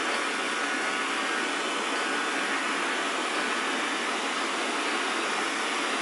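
First-generation Xiaomi Mi Robot Vacuum running its suction fan on the turbo setting: a steady, even rushing noise with a faint high whine, at constant loudness.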